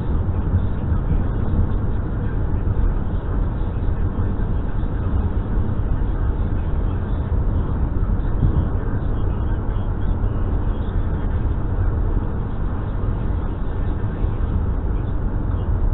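Steady low rumble of a car driving at cruising speed, tyres on asphalt and engine, heard from inside the cabin.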